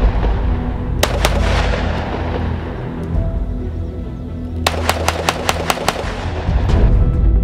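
Gunshots from a 9mm Glock 19 pistol fired with its stand-off device pressed against a rubber target dummy, over background music. There are two shots about a second in, then a fast string of about eight shots near the end, each followed by a short echo.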